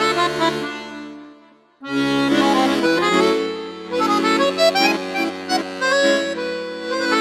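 Instrumental background music: a melody over held chords, dying away about a second and a half in and starting again about two seconds in.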